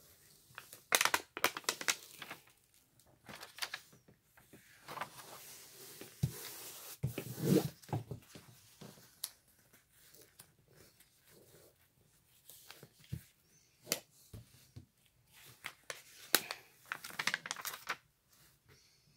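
Paper and plastic release film crinkling, crackling and peeling as a diamond painting canvas is handled and its sticky protective cover is pulled back, in irregular rustles and sharp crackles.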